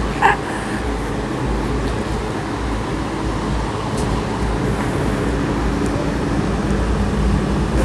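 Steady low rumble and hiss of background noise, with one short high-pitched sound about a quarter-second in.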